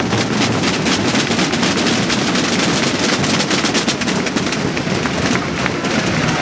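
Massed snare drums and bass drums (bombos) playing together in a dense, continuous rattle of fast strokes, a 'perkumascletà' that imitates a firecracker barrage with drums.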